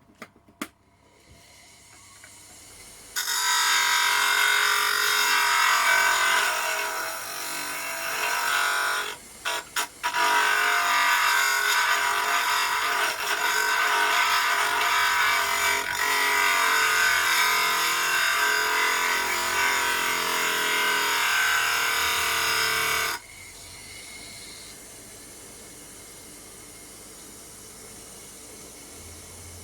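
Homemade disc sander, driven by a washing-machine motor, grinding a workpiece. The grinding starts suddenly, breaks off briefly about ten seconds in, and stops abruptly after about twenty-three seconds, leaving a steady, quieter hiss.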